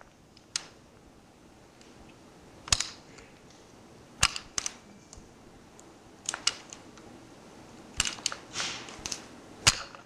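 A string of sharp clicks and knocks, about nine of them and some in quick pairs, over a faint steady hiss.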